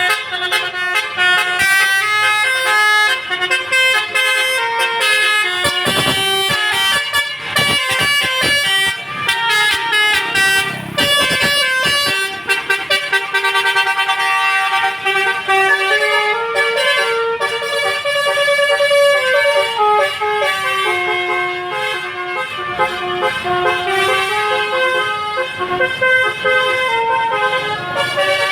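Basuri telolet musical horn on a tour bus, its roof-mounted trumpets playing a tune note by note. Stepped horn notes run on continuously, with rougher noise mixed in between about six and twelve seconds in.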